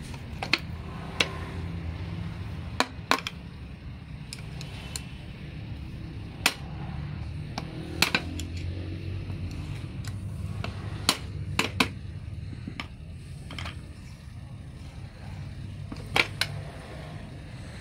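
Sharp clicks and knocks from a Suzuki manual gearbox's shift mechanism being worked by hand to test the gear engagement, about a dozen at irregular intervals, over a steady low hum.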